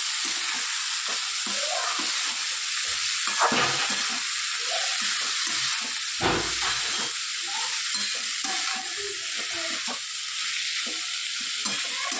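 Chopped amaranth leaves sizzling in hot oil in a metal pan while a spatula stirs and scrapes them in quick strokes. There is one dull low bump about six seconds in.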